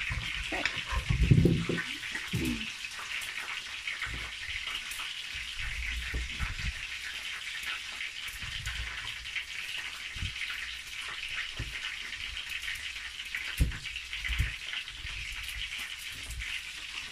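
Fish frying in hot oil, a steady crackling sizzle, with a few low thumps from handling the sweet potato and knife on the cutting board, a cluster about a second in and two more past the middle.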